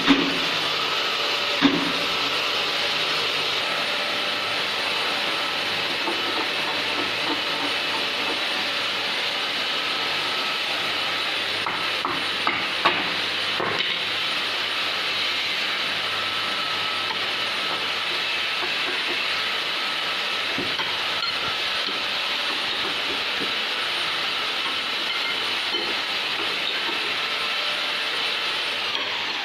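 A steady hissing noise, with a few light clicks about halfway through.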